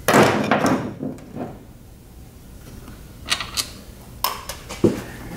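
Metal clunks and rattles as a Treadle-Vac power brake booster is worked loose from a car's firewall, with a loud rattle in the first second and a few sharp knocks later on.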